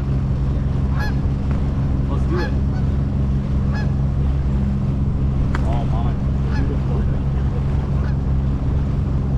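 A small boat's motor running steadily at low speed, a constant low hum. Over it, birds call several times at intervals of a second or so.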